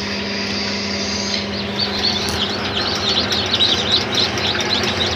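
Newly hatched Australorp and Rhode Island Red chicks peeping, a dense chorus of high cheeps that thickens about a second and a half in, over a steady low hum.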